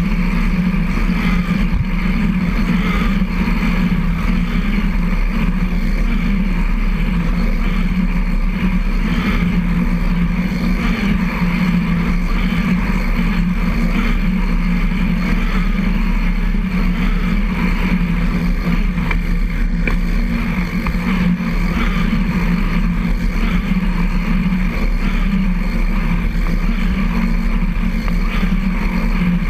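Steady rolling noise of a recumbent trike riding on a concrete trail: tyre and drivetrain rumble picked up by a camera mounted on the frame, unbroken throughout.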